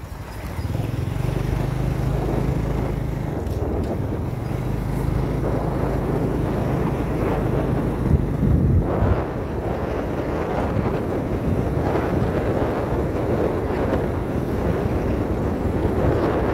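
Motorbike engine running steadily while riding, with wind rushing over the microphone. From about nine seconds in, the wind and road noise cover the engine's hum.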